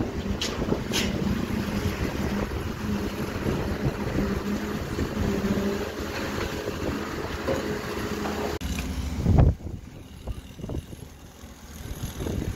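Concrete pump truck running steadily with a constant engine hum while pumping concrete. The sound cuts off abruptly about two-thirds in, followed by a single loud thump and then quieter background noise.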